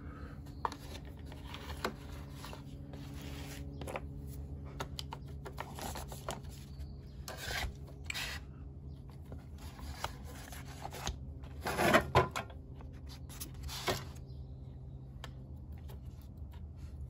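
Quiet tabletop handling sounds of a watercolour painter at work: small taps and clicks, light scrapes and rubs, and a brief louder rustle about twelve seconds in, over a steady low hum.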